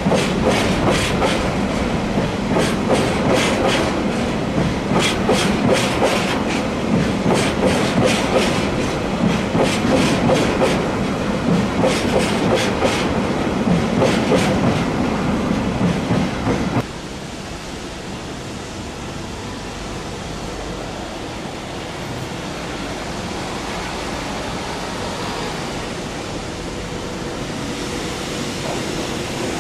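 Freight train of tank wagons rolling past very slowly, its wheels clicking over the rail joints in uneven clusters over a steady rumble. About 17 seconds in the sound cuts to a quieter, steady rumble that grows slightly as an EH200 electric locomotive approaches.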